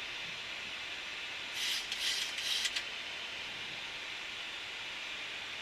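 Steady rushing hiss of airflow in a Boeing 737-800 cockpit on final approach with the landing gear down. About a second and a half in, it is broken by a brief ragged burst of crackly noise lasting about a second.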